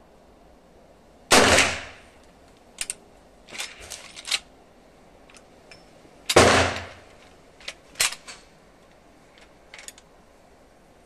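Two gunshots from a Winchester 1873 lever-action rifle, about five seconds apart, each ringing out for about half a second. Between and after them come short metallic clicks of the lever action being worked.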